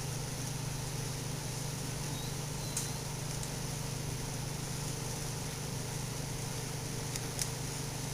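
Steady low background hum, with a few light clicks of small starter parts being handled during reassembly, one about three seconds in and two near the end.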